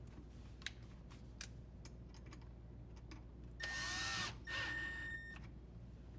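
A cordless drill driver runs in two short bursts of about a second each, with a steady whine, after a few light clicks and handling knocks.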